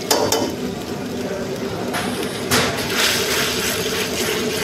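Soup boiling hard in a steel wok while a metal ladle stirs it, just after cornstarch has gone in to thicken it; the ladle clinks against the wok twice, about a second in is none but once at the start and again about two and a half seconds in, over a steady bubbling hiss.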